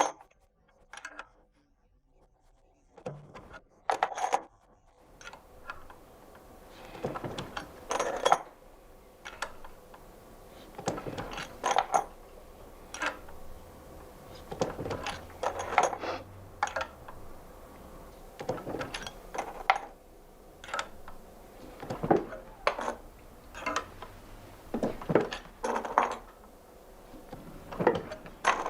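Steel scissor parts and tools clinking and clanking against metal as they are handled during milling of the scissor joint, at irregular intervals of a second or two. A low machine hum runs under the middle stretch.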